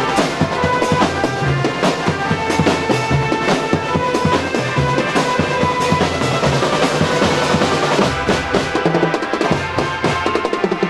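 Loud music with a drum kit keeping a fast, busy beat under long held melody notes.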